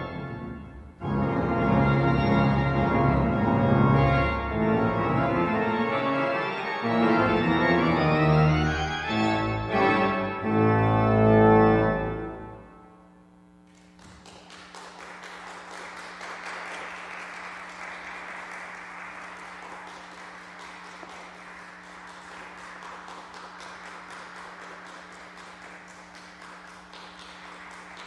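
Church pipe organ playing the loud closing chords of a piece, with quick rising runs. The final chord is released about 13 seconds in and its echo dies away. Applause starts about a second later and keeps going to the end, over a steady low hum.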